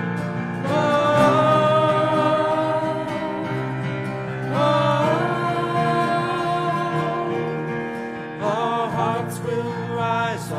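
Live contemporary worship music: sung notes held long with vibrato over guitar accompaniment, with new phrases coming in about a second in, midway and near the end.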